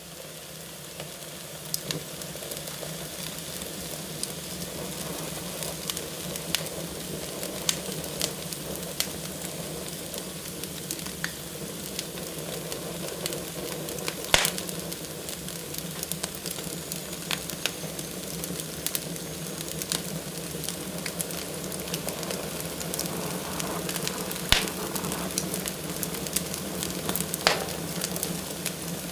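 Wood fire burning in a fireplace: a steady hiss with irregular crackles and sharp pops, the loudest pops about halfway through and twice near the end.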